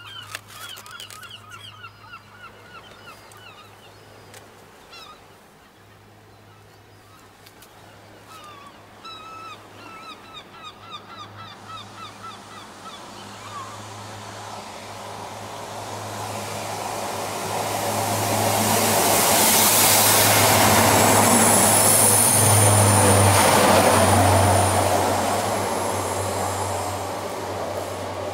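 Birds calling in quick runs of short repeated notes near the start and again about ten seconds in. Then a train passes: a broad rushing noise swells from about a third of the way through, is loudest for several seconds with a thin high squeal, and fades toward the end.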